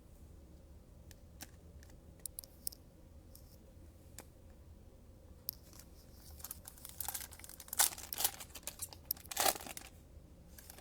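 A pack of football trading cards being torn open, its wrapper crinkling, with light clicks of cards being handled before it. The tearing and crinkling come in the second half, loudest near the end.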